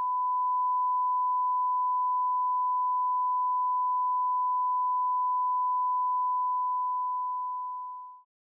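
Bars-and-tone test signal: a single steady pure reference tone, held at one pitch, tapering off and stopping shortly before the end.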